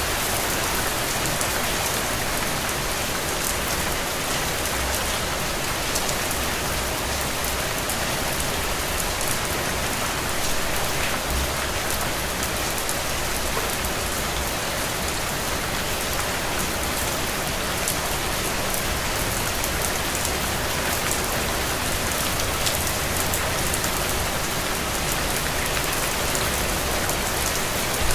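Steady rain falling, with the patter of many individual drops hitting a surface and a soft low rumble underneath.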